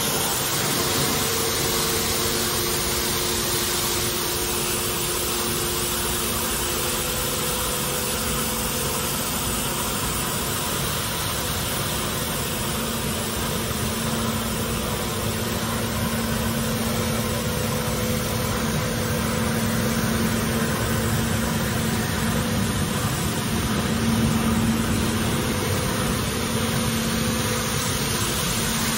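Bucher CityCat 5006 compact street sweeper running with its sweeping gear lowered: a steady engine hum under a broad hiss, changing little throughout.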